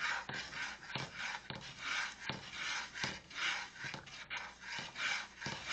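Metal spatula scraping and stirring along the bottom of a stainless steel skillet through thickening milk gravy, in short strokes about two a second, each with a light knock.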